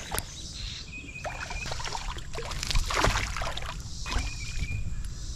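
Fly line being stripped in by hand while a hooked smallmouth bass is played from a kayak: swishes of line and water splashing and lapping against the hull, over a steady low rumble. A short high wavering tone sounds twice, about a second in and again near the end.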